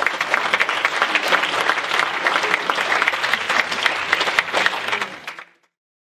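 A crowd clapping and applauding, dying away a little after five seconds in.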